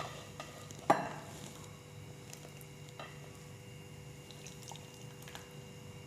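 Hot and sour soup being ladled from the pot into a bowl: one sharp, ringing clink of the ladle on the pot or bowl about a second in, then a few faint clicks and liquid sounds over a faint steady hum.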